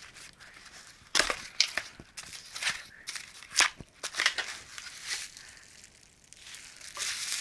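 Paper packaging crinkling and crackling in sharp irregular snaps as a small box is unwrapped and opened, settling into a steady rustle near the end.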